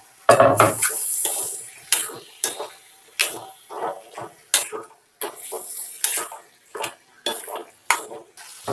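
A ladle stirring chicken pieces through masala in a kadai: irregular metal scrapes and knocks against the pan, about one or two a second, over the sizzle of the frying masala.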